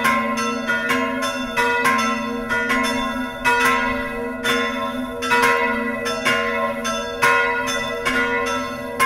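Several church bells swinging and ringing together in a tower, their strokes falling irregularly about every half second and overlapping with the long ringing of the notes before.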